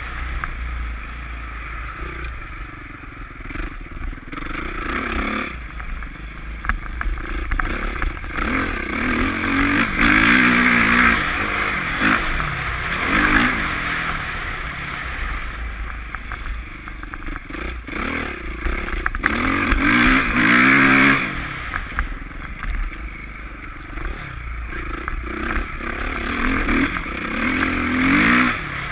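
Motocross bike engine running under way, its pitch rising in a long climb four or so times as the rider accelerates and falling back between them.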